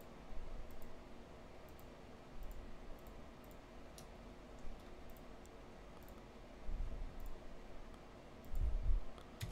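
Faint computer mouse clicks, scattered irregularly, with a few dull low bumps against the desk, over a steady low room hum.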